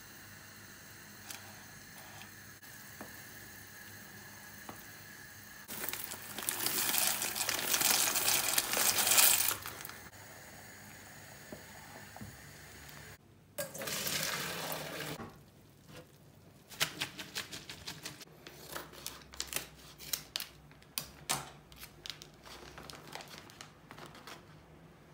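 Water boiling in a pot, with pasta cooking and stirred with a wooden spoon, and a loud rushing hiss about six seconds in that lasts some four seconds, then a shorter one. In the last third, a plastic bag of grated cheese crinkles and crackles in quick clicks as it is handled.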